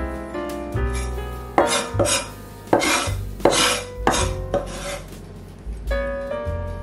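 Background music with a steady bass line. In the middle, a cleaver makes about six short scrapes on a wooden cutting board.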